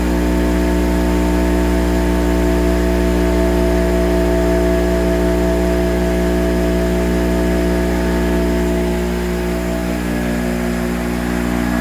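Multiscore MR 21 panel rip saw running: a steady electric motor hum with several constant tones. About nine seconds in, the sound dips slightly and one tone fades out, and a lower tone comes in near the end.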